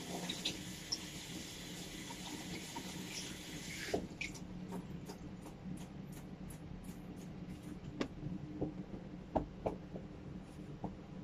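Water running from a washbasin tap as hands are rinsed; it shuts off about four seconds in. Scattered light clicks and knocks follow.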